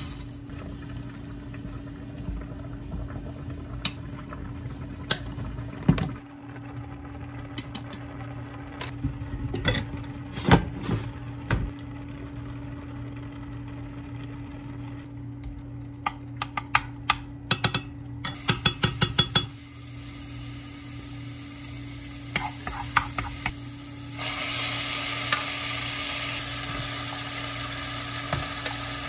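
Pots and utensils clacking and knocking as spaghetti is handled between a pot and a frying pan, with a quick run of clicks partway through. From about three-quarters of the way in, a steady sizzle as boiled spaghetti goes into hot oil in the frying pan, over a steady low hum.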